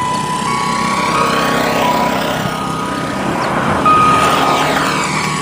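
Steady electronic warning tones that hold and step between a few pitches, over the rising and falling rush of a vehicle passing, loudest about four seconds in.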